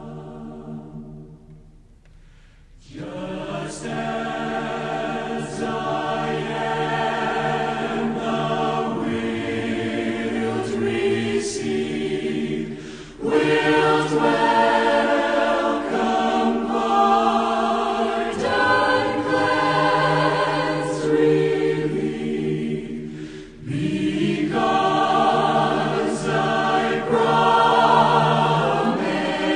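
Choir singing a slow hymn in long held phrases, with a brief pause between phrases about two seconds in and shorter breaks later.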